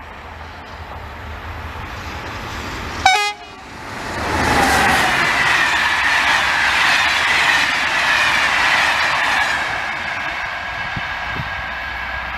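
Electric-hauled passenger train passing: a very short, sharp horn blast about three seconds in, then the loud rush of the train going by, with a high tone that slowly falls in pitch and fades as it draws away.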